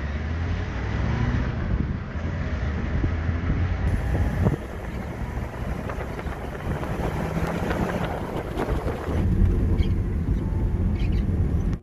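Safari Land Cruiser driving: steady engine and road rumble with wind buffeting the microphone and a few knocks from the vehicle.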